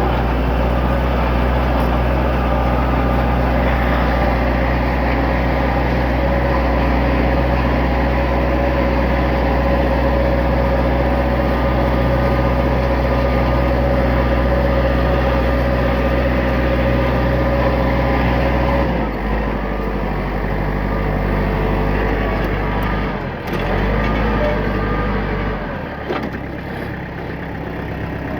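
Tractor engine running steadily while dragging chained oak logs; about two-thirds of the way through the engine speed drops, and it changes again twice near the end.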